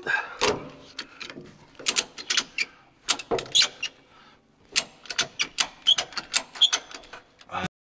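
Irregular sharp metallic clicks and clanks of hand work with tools and metal parts under a heavy truck at its transmission, coming in quick clusters with a short pause partway through, then cutting off suddenly near the end.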